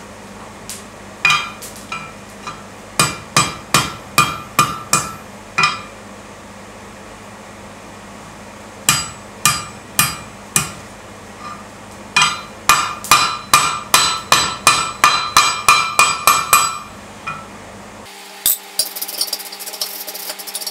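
Hand hammer striking a hot steel bar over the anvil horn, each blow with a short metallic ring, curling the bar's end into a scroll. The blows come in groups, first a few spaced strikes and then a fast run of about three blows a second. Near the end the hammering stops and a steady hum with a high hiss takes over.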